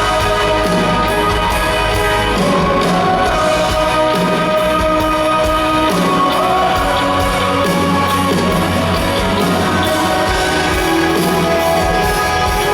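Church praise team performing: voices singing long, held notes over guitar and band accompaniment.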